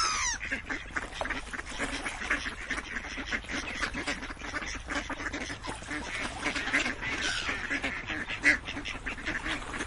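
A flock of ducks quacking continuously, many calls overlapping. A brief falling whistle sounds at the very start.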